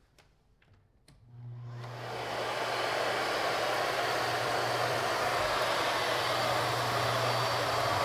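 A few clicks, then the motor of a new-old-stock Miele Art S930 upright vacuum cleaner starts about a second in, winds up to full speed over about two seconds and runs steadily with a low hum under a rushing air noise.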